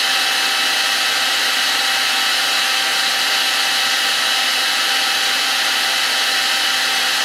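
Electric heat gun (paint stripper gun) running steadily, blowing hot air with a steady rushing hiss and a faint whine from its fan motor.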